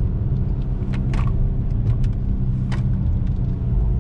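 A BMW's engine and tyres running steadily as the car drives, heard from inside the cabin as a low, even hum. A few short clicks are scattered through it.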